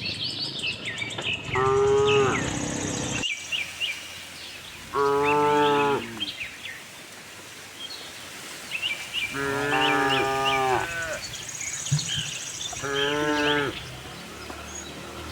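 Cattle mooing: four drawn-out moos, each lasting about a second or a little more, with small birds chirping in between.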